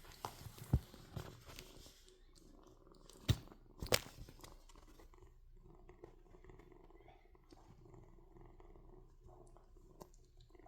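Kitten purring steadily, with a few sharp clicks in the first four seconds, the loudest of them about three to four seconds in.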